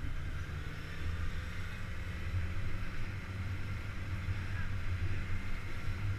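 Motorcycle engine running at a steady low note while riding.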